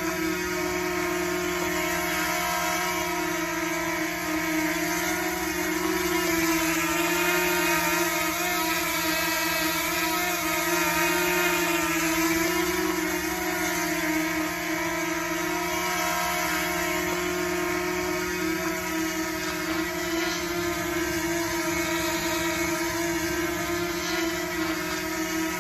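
DJI Mini drone in flight: the steady buzzing whine of its propellers and motors, its pitch wavering slightly.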